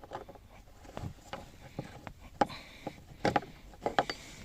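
Irregular clicks and light knocks from handling small parts, about ten in all, the strongest in the second half.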